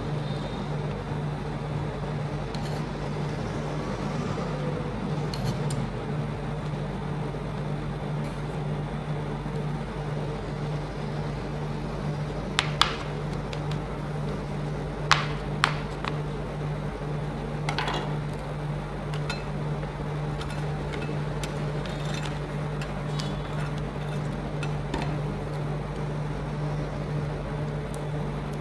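Steady machine hum with a few sharp metallic clinks of spatulas striking an ice cream roll freezing plate, two pairs close together about halfway through.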